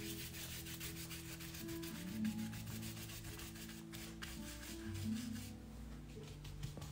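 Paintbrush scrubbing blue paint across the paper in short, quick strokes, a faint dry rubbing and scratching. Soft background music with long held notes runs underneath.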